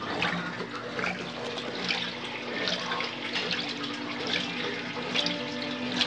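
Consul Facilite CWG11 top-loading washing machine agitating a drum filled to the high water level on the delicate cycle. Water sloshes in swells a little under once a second over a faint steady hum.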